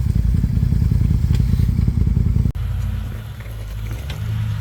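Off-road truck engine pulling hard with a rough, pulsing note. It breaks off abruptly about halfway through and gives way to a smoother, lower engine note that rises slightly near the end.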